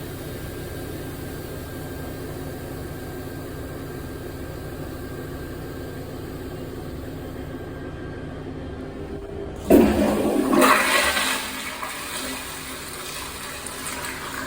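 2000s Kohler pressure-heavy toilet: a steady hiss as the tank refills, then about ten seconds in a sudden loud flush that dies down over about three seconds as it clears a load of toilet paper.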